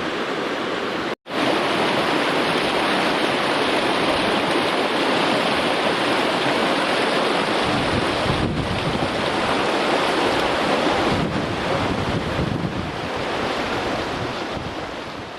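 River water rushing, a loud, steady, even rush. It is broken by a split-second gap of silence about a second in, then runs on and eases slightly near the end.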